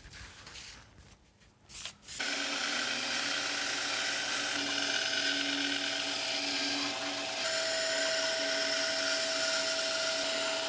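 After about two quiet seconds, a small benchtop bandsaw starts up and runs steadily, its blade cutting through half-inch plywood along a paper pattern.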